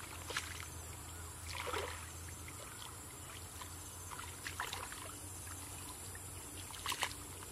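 Hands and legs sloshing and splashing in shallow muddy water as someone gropes for fish in the mud, with a few short splashes spread through, over a faint steady low hum.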